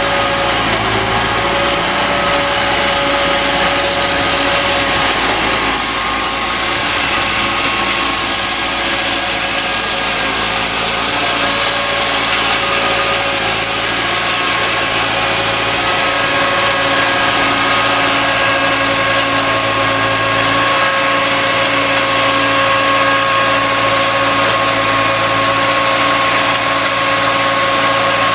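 An engine running steadily at an even speed, with a constant whine over a low rumble.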